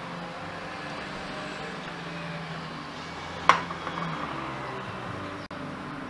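One sharp metallic click with a short ring about halfway through, from the scooter's kick-start lever mechanism being handled during lubrication, over a steady low hum.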